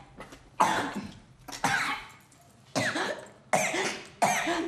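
A woman's harsh, coughing cries in five sudden bursts about a second apart.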